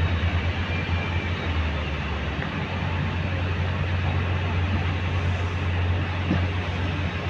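Loaded 12-wheel tipper truck's diesel engine pulling steadily as the truck wades through shallow muddy water, a deep, even drone.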